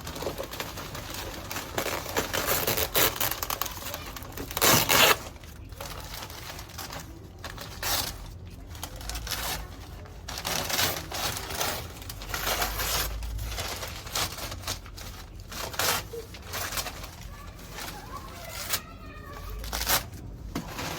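Plastic and paper packaging rustling and crinkling in irregular bursts, loudest a few seconds in, as it is handled and pulled open.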